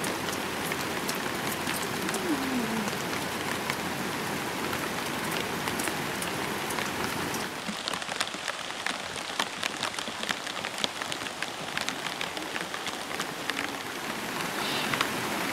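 Rain falling as a steady hiss, with sharp individual drop ticks becoming more frequent about halfway through.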